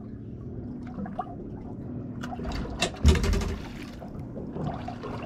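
Water lapping and trickling around a small boat's hull, with a loud knock and a short splash about three seconds in.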